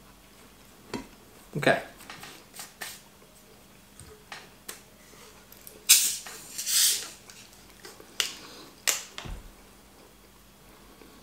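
Plastic water bottle being unscrewed: two short hissing bursts as the cap is twisted open, with clicks and crinkles from the bottle and cap being handled before and after.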